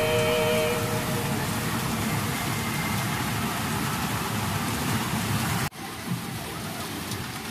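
Dense, steady rattling hiss of a pachinko parlour: the din of steel balls pouring through the machines. It drops suddenly to a lower level near the end.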